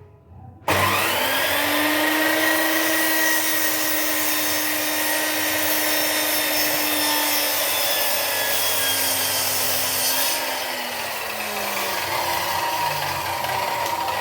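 An electric woodworking power tool starts about a second in and runs at speed, cutting wood. A little after the middle the cutting noise stops and the motor tone drops in pitch as it winds down.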